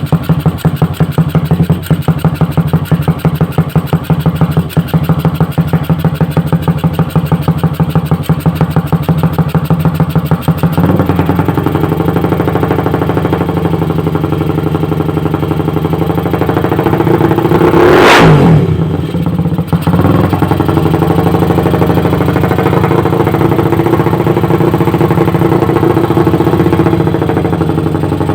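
Motorcycle engine running through an aftermarket exhaust, idling with a distinct pulsing beat, then settling to a smoother, slightly higher idle about eleven seconds in. One quick rev blip about eighteen seconds in rises and falls sharply before it drops back to idle.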